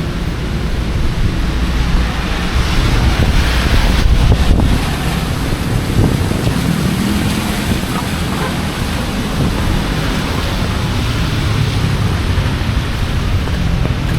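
Heavy typhoon rain pouring down: a loud, steady rushing hiss, with a low rumble underneath.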